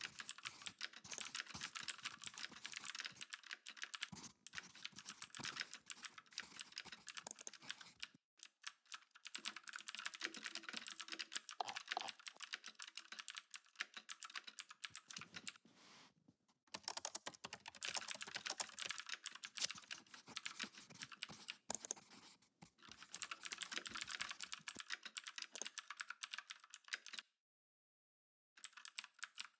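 Typing on a computer keyboard: quick runs of keystrokes broken by several short pauses, the longest about a second of silence near the end.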